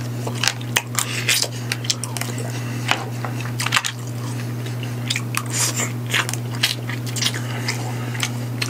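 Eating sounds of a man taking steamed Manila clams from their shells: sucking the meat off the shell and chewing, with many sharp clicks of clam shells knocking together as he picks them from the pan. A steady low hum runs underneath.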